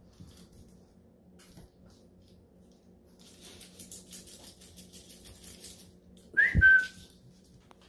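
Dogs' paws scuffling and clicking on a tile floor, then near the end a short, loud whistle that dips slightly in pitch and holds before stopping.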